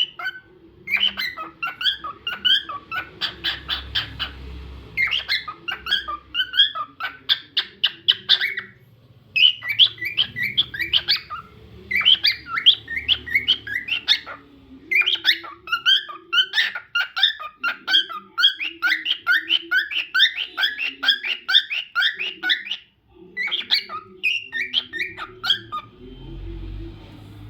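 Cockatiel singing: long phrases of rapid, short whistled chirps, breaking off briefly a few times before starting again.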